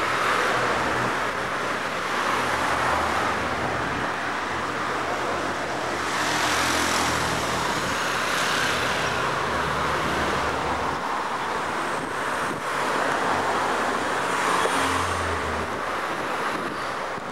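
Night city street traffic: a steady hum of road noise, with passing cars swelling louder about six seconds in and again near the end.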